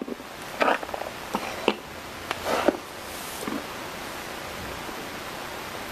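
Plastic toy horse figurines being handled and moved about: a few soft knocks and rustles in the first half, over a steady hiss that carries on alone after that.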